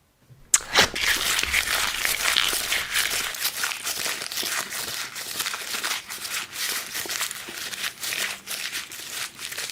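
Close-miked ASMR crinkling and crunching, with a dense crisp crackle that starts suddenly about half a second in.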